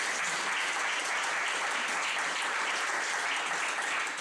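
Audience applauding: dense, steady clapping from a roomful of people.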